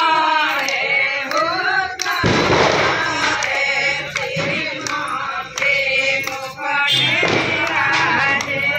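A group of women singing together, several voices at once, with a sharp knock about two seconds in.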